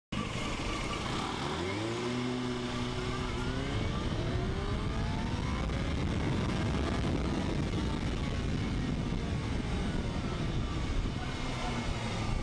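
Motorcycle engine pulling away and accelerating, its pitch rising in two sweeps over the first several seconds, under a steady rush of wind noise on the helmet-camera microphone. The sound cuts in suddenly right at the start.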